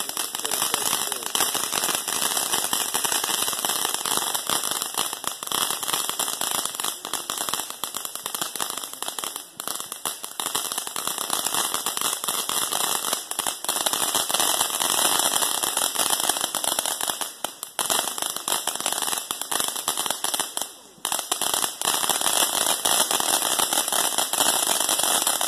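Ground fountain firework spraying sparks, with a dense, continuous crackle over a hiss. It dips briefly three times, the longest lull about 21 seconds in, then carries on at full strength.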